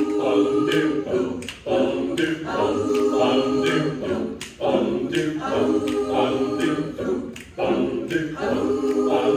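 Mixed-voice a cappella group singing the chordal introduction of a song in short repeated phrases. A sharp click about every three-quarters of a second keeps the beat.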